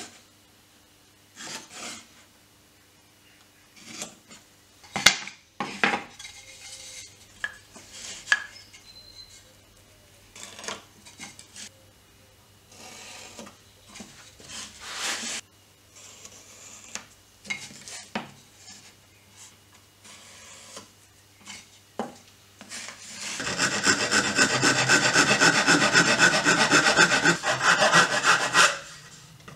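Scattered light knocks, taps and scrapes of wooden boards and hand tools being handled on a wooden workbench. Near the end a small backsaw cuts across a pallet-wood board in quick strokes for about five seconds, the loudest sound.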